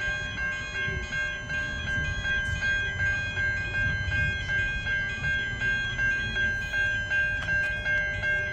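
Siemens Type 3 electronic level-crossing bell ringing: a high, pitched ding repeated evenly about two to three times a second, over a low rumble.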